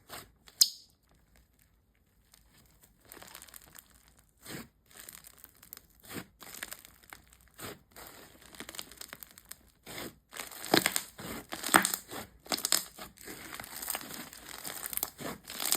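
Slime being squished and kneaded by hand, with irregular crackling and clicking pops. It is nearly quiet for a couple of seconds near the start and gets louder and busier from about ten seconds in.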